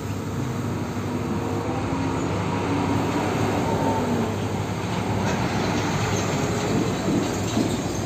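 Diesel engine of a heavy fuel tanker truck running as the truck moves slowly past, with a steady low hum under the road noise.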